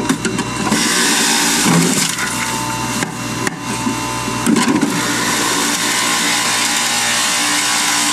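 Electric juicer running, its motor giving a steady whine while fruit and vegetables are pushed down the feed chute and shredded; the grinding grows denser about a second in as produce goes in.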